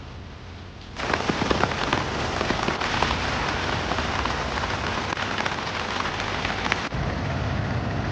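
Heavy rain falling, a dense hiss full of individual drops striking a surface. It starts abruptly about a second in, and near the end it changes to a duller, deeper rush.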